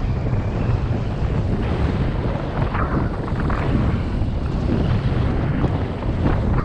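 Wind buffeting an action camera's microphone while riding down a groomed ski slope, with the hiss and occasional scrape of edges sliding over packed snow.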